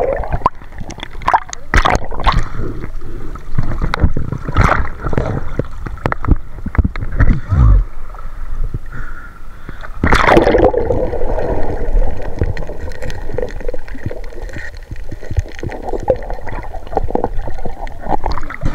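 Seawater gurgling and splashing close to the microphone, with irregular knocks and a bigger surge of water about ten seconds in.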